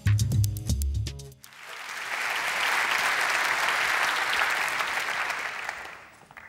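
A short stretch of music with a bass line and a steady beat that stops about a second and a half in, followed by a large audience applauding, building up and then dying away near the end.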